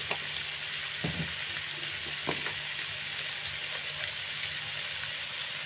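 Chicken pieces and chicken feet frying in a wok with spice paste, a steady sizzling hiss with a few faint clicks.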